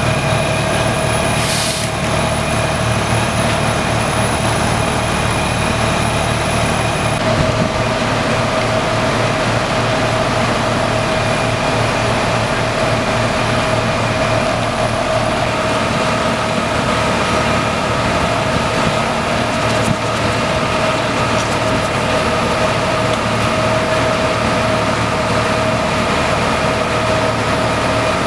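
Steady drone of idling fire apparatus engines and their generators, with a constant whine above the low hum. There is a short hiss about a second and a half in.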